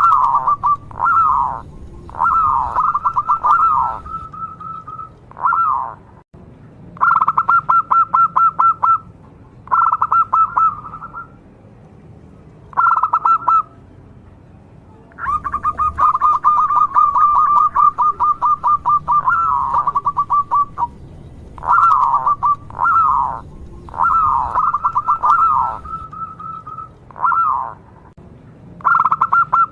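Zebra dove (perkutut) cooing: repeated phrases of fast, purring pulsed notes around 1 kHz, some phrases made of short falling notes, with brief pauses between them.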